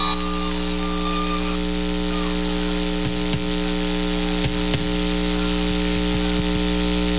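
Steady hiss with an electrical mains hum under it, and a few faint clicks a few seconds in.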